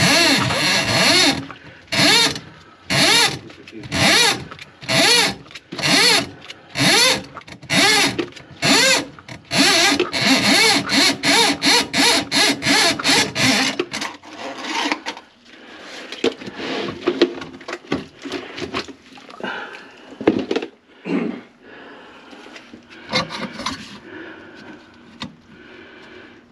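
Powered drain snake spinning its cable in a clogged kitchen sink drain, run in short on-off bursts about once a second with a wavering whine. About halfway through the bursts stop, giving way to quieter scraping, rubbing and clicks of the cable.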